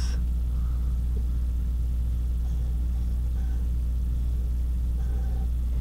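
A steady low hum that does not change, with nothing else clearly standing out.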